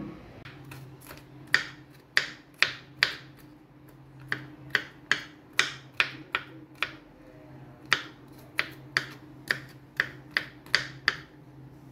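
Kitchen knife chopping garlic cloves on a wooden cutting board: sharp, uneven taps, about two a second, with a short pause near the middle. A faint low hum runs underneath.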